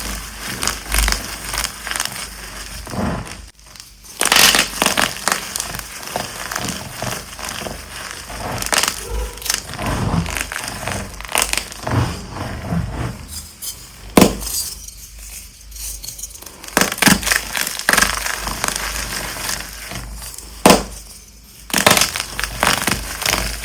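Dyed gym chalk blocks being crushed, a dense run of irregular crunches and crackles broken by a few short pauses.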